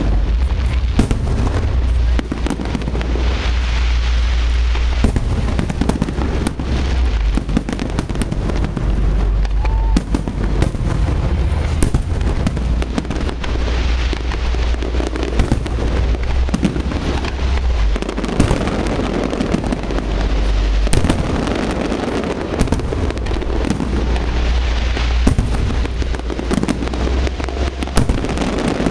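A fireworks display, rapid bangs and crackling shell bursts going off one after another, with deep booming rumble underneath.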